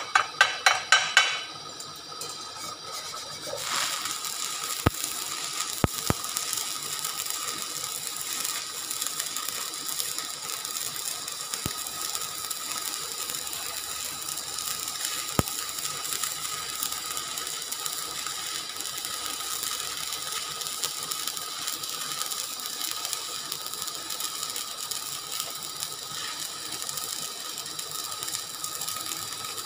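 A hammer strikes the tacked steel nipple adaptor in quick blows, about four a second, stopping about a second in. After a short lull, a stick-welding arc starts and crackles steadily as the adaptor is welded onto the steel saddle, with a few sharp clicks early on.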